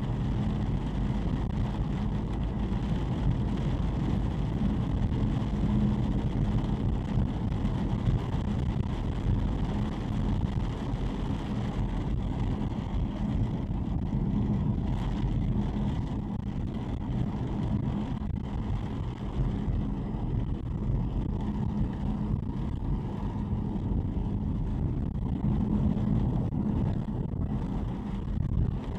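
A car heard from inside its cabin while driving on a wet road: a steady engine hum and tyre noise on wet asphalt, with wind against the body.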